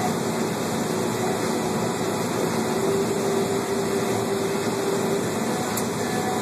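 Steady drone of a combine harvester, heard from inside its cab while it harvests a crop. A faint extra hum comes in about a second and a half in and drops away around five seconds.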